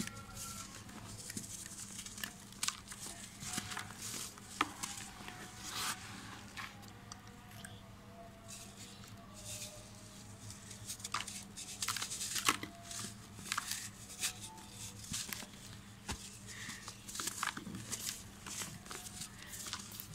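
Dry, compressed red dirt blocks crumbled between the fingers: irregular gritty crunches and crackles, with the soft hiss of powdery soil sifting down onto a pile of loose dirt.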